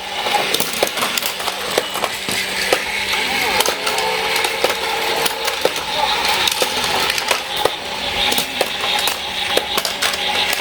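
Battery-powered Plarail toy trains running on plastic track: a steady rattling clatter full of small irregular clicks.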